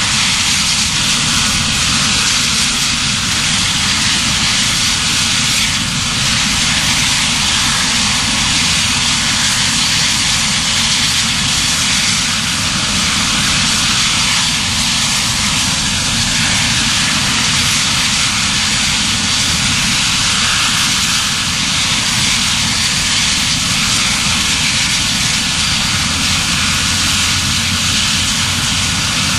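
Medical helicopter running steadily on the ground, a continuous turbine and rotor noise.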